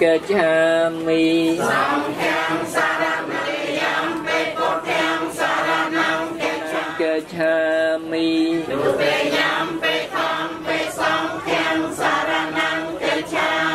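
Congregation of Buddhist lay worshippers, men and women together, chanting a prayer in unison in long held notes.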